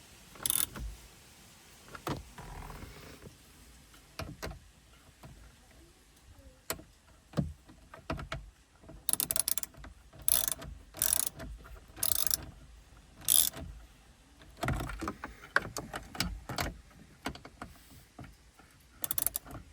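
Hand socket ratchet clicking in short, scattered bursts, busiest in the middle, as bolts are snugged up.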